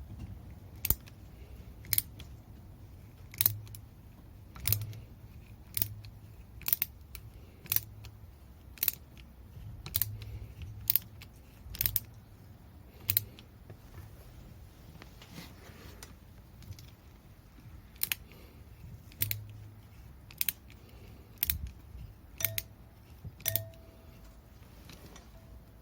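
Sharp metallic clicks from hand tools working on metal, about one a second, some twenty in all.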